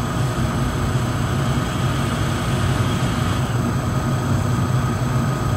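Steady low mechanical hum with an even hiss over it.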